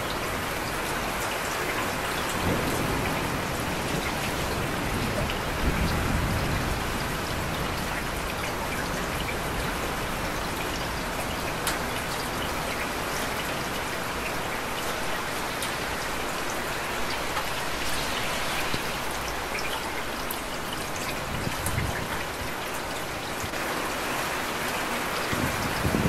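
Steady rain falling, with a few low rumbles of distant thunder now and then.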